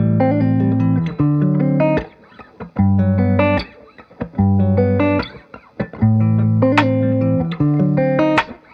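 Background music of plucked-string notes, played in short phrases with brief pauses between them.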